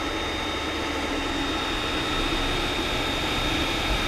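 Creality CR-10S Pro 3D printer running mid-print: a steady fan hum with a thin, steady high whine over it.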